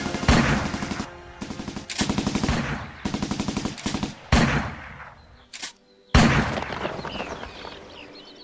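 Several short bursts of rapid automatic gunfire, then a few heavier single shots, the last and loudest a little after six seconds in, each fading away slowly.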